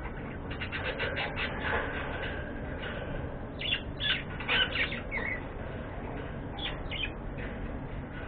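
Budgerigars chirping and squawking in quick runs of short calls, with a few pauses, loudest about halfway through; a steady low hum runs underneath.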